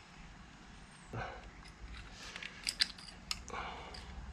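Circlip pliers removing a circlip from the back of a Warn free-wheeling hub body: a short scrape about a second in, then a run of sharp little metal clicks and ticks as the pliers grip and the clip springs off.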